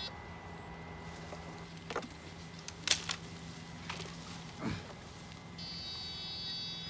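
Electric fish-shocking rig humming steadily. Its high-pitched whine drops out and comes back about five and a half seconds in. A few short sharp knocks come about two and three seconds in.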